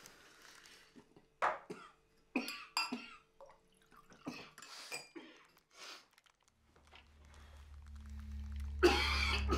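A man coughing in a string of short, harsh fits, the cough of a man whose lungs are failing. About two-thirds of the way in, a low drone of film score swells in and grows louder.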